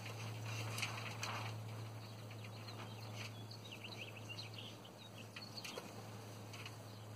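Quiet outdoor ambience: a steady low hum, a soft rush of wind in the first second or so, and faint short bird chirps in the middle.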